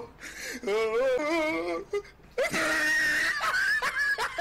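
A person's high, wavering whimpering wail, then a shrill scream-like cry about halfway through.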